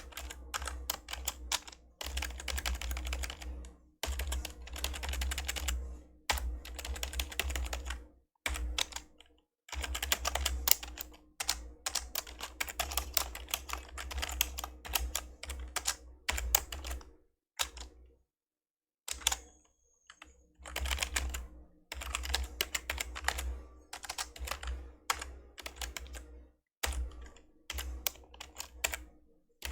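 Typing on an old membrane computer keyboard: quick runs of soft key presses in bursts of a few seconds, with short pauses between them and one longer pause a little past halfway.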